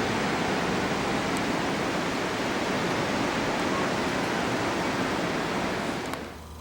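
Steady, even rushing noise, like running water or surf, that cuts off about six seconds in.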